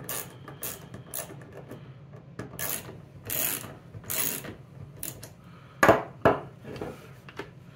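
A 3/8-inch socket wrench ratcheting hex nuts along steel threaded rods, in short runs of clicks every half second or so. About six seconds in come two sharp knocks, the loudest sounds.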